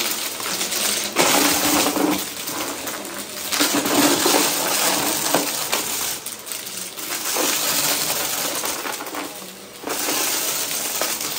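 Bagless upright vacuum cleaner running on carpet, sucking up confetti, paper bits and small beads that rattle and click as they are drawn up into its clear dust bin. The sound swells and eases with each push.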